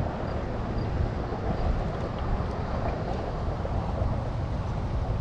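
Wind buffeting the microphone, a steady low rumble with no let-up.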